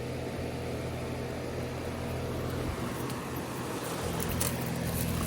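Heat pump equipment running with a steady machine hum and a low electrical buzz, the hum growing a little stronger about four seconds in.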